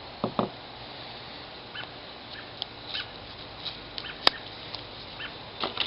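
Scissors trimming a strip of adhesive-backed neoprene: a couple of quiet snips near the start and one sharp snip a little after four seconds. Faint bird chirps sound in the background.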